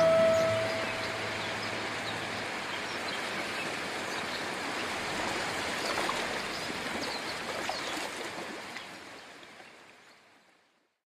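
Steady rushing water ambience, an even hiss with faint high chirps through it, fading out to silence near the end. The last note of the outro music dies away in the first second.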